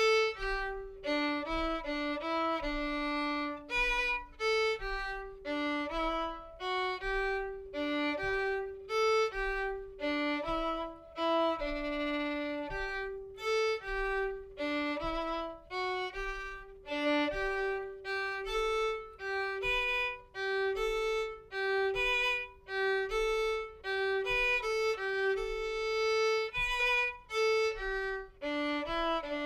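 Solo violin, bowed, playing a lively French-Canadian folk tune as a single melody line of short, separated notes.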